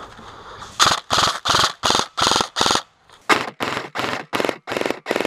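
An M4-style SOPMOD Block II airsoft electric rifle (AEG) firing a rapid string of loud shots, about three a second. The shots come in two runs of about seven, with a brief pause about three seconds in.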